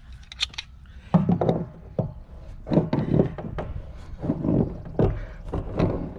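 Water pump pliers working the nut of a PVC bulkhead fitting against the curved wall of a plastic rain barrel: a series of short knocks and scrapes at uneven spacing as the fitting is tightened, starting about a second in.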